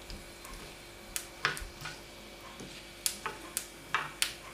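Scattered light clicks and ticks from a small pan of tempering being stirred with a steel spoon: mustard seeds, dried red chillies and curry leaves in hot coconut oil. The clicks come at irregular intervals, several in the second half.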